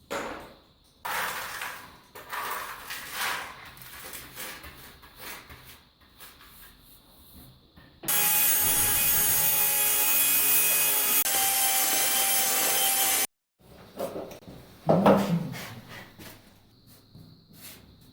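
Renovation tool work: rasping strokes, then a loud, steady power tool runs for about five seconds and cuts off suddenly, followed by a few more scraping strokes.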